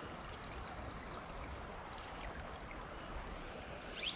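Shallow creek water running steadily over a gravel riffle, with a short swish near the end.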